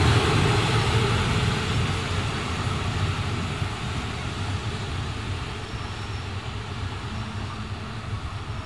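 Passenger train carriages rolling away along the track: a steady rumble of wheels on rails that slowly fades.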